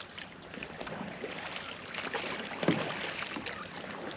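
Light splashing and lapping of calm water from kayak paddling, with one brief louder knock about two and a half seconds in.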